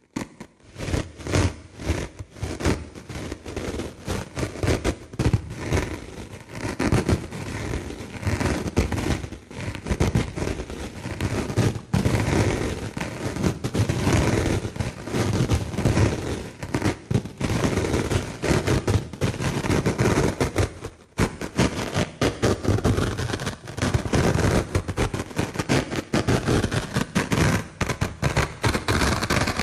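Dry sponge handled close to the microphone: dense, continuous crackling and scraping full of sharp clicks, with brief lulls twice.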